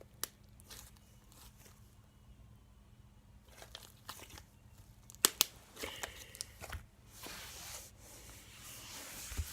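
Slime being squeezed and pulled by hand, with small sticky clicks and pops. There are two sharp pops about five seconds in, and a soft crackling rustle near the end.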